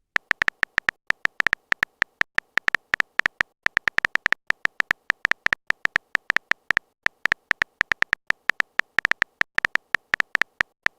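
Typing sound effect: a rapid, uneven run of short, sharp clicks, several a second.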